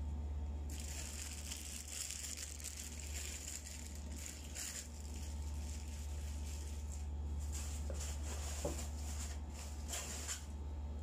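Crinkling and rustling of a disposable plastic glove and an aluminium foil tray as a gloved hand arranges lemon and onion garnish on rice, starting about a second in and coming in uneven bursts. A steady low hum runs underneath.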